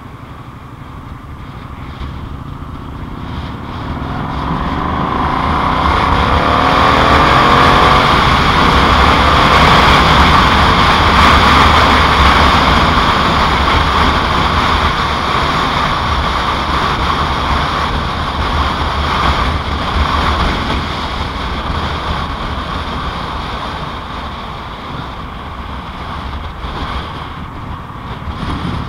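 2007 Yamaha Royal Star Tour Deluxe motorcycle under way: its V4 engine runs beneath a steady rush of wind and road noise. The sound builds over the first eight seconds or so, then slowly eases.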